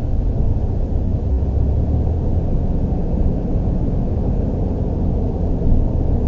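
Steady low rumble of a car driving slowly, its road and engine noise heard from inside the cabin.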